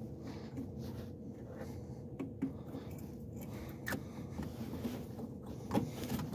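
A few light clicks and scrapes as a throttle slide is lowered into a snowmobile carburetor body and its cap is started on the fine threads. A faint steady hum runs underneath.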